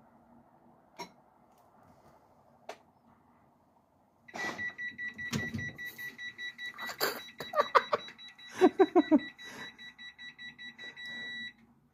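Washing machine sounding a rapid run of high electronic beeps, starting about four seconds in and stopping just before the end. A few loud, short vocal sounds come in the middle, and two light knocks are heard before the beeping.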